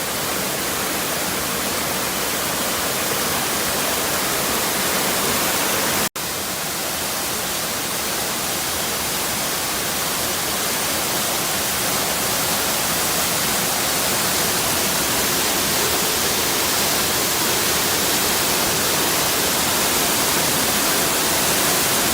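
A waterfall's steady rush of falling water, breaking off for an instant about six seconds in.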